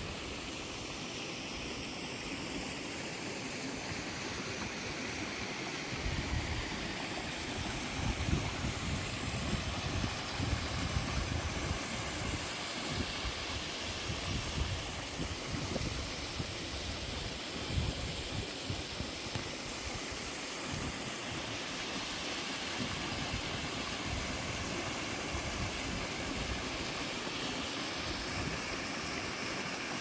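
Steady rush of an alpine waterfall's falling water, with wind buffeting the microphone in irregular low gusts through much of the middle.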